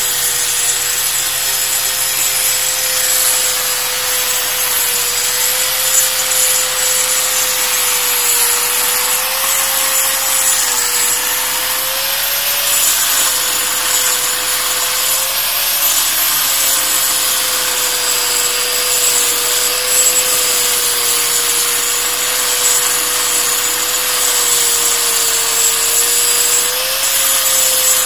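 Electric angle grinder with a 4-inch cup wheel grinding the face of a flour-mill stone, dressing (roughening) its grinding surface. It runs continuously: a steady whine that wavers slightly in pitch over a harsh, gritty hiss from the stone.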